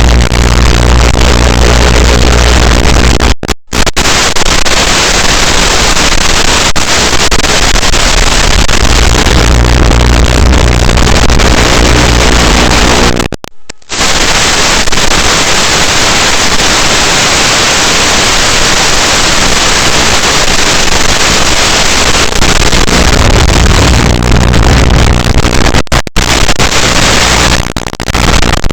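FPV racing quadcopter's motors and propellers at full throttle, heard loud and distorted with a buzzing pitch that rises and falls with the throttle. The sound cuts out abruptly for a moment twice.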